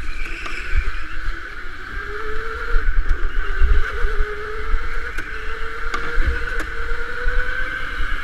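Electric indoor go-kart running at speed, its motor whine rising slowly in pitch as the kart accelerates out of a corner onto the straight. Wind rumbles on the onboard microphone, with a few faint clicks.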